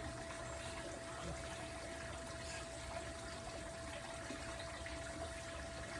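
Steady background noise like trickling water, with a faint constant high hum running through it.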